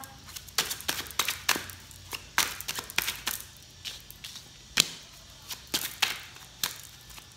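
Tarot cards being shuffled by hand: irregular soft clicks and slaps of card against card, a few a second, with one louder snap about two-thirds of the way through.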